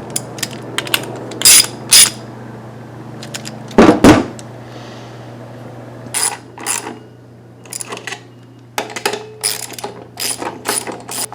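Metal tools clicking and clinking against the carburetor as its bolts are turned down with a ratchet wrench, in irregular bursts of sharp clicks. The loudest clank comes about four seconds in.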